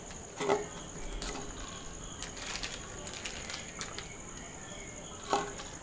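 Crickets chirping in a steady high trill behind soft crinkling and squishing as besan batter is pressed by hand into a plastic packet. A short louder sound comes about half a second in and again near the end.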